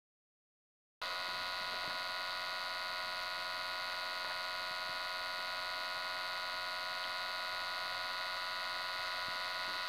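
Steady electric buzzing hum with a high whine from a tracer-gas leak detector and its ground probe running over the soil, starting abruptly about a second in and holding at an even level.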